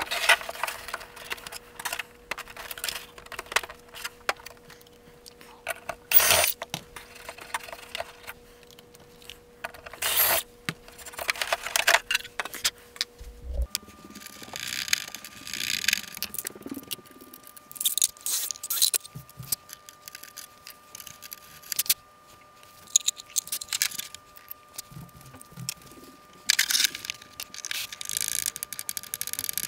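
Hands fitting a plastic fuel tank into a model jet's fuselage: scattered clicks, taps and scrapes with rustling between them. A faint steady hum runs underneath and shifts higher about halfway through.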